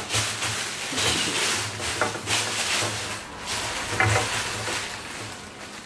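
Packaging being handled during an unboxing: an irregular run of rustles, crinkles and scrapes.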